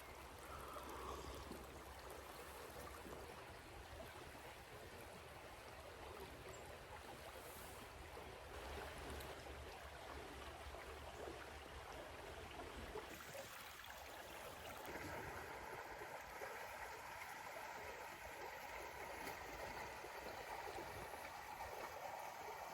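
Small creek flowing, a steady babbling of water; its lower rumble drops away a little over halfway through.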